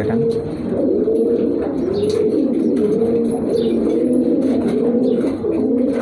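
Many caged domestic pigeons cooing at once, their low rolling coos overlapping continuously.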